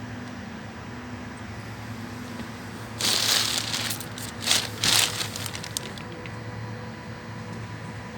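Steady machinery hum with a few even tones, broken about three seconds in by a loud rustling, crackling noise that comes in several surges and dies away after about three seconds.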